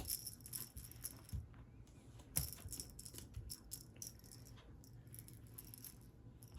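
A cat toy being jiggled, giving light, scattered rattling clicks, with the sharpest clicks at the start and about two and a half seconds in.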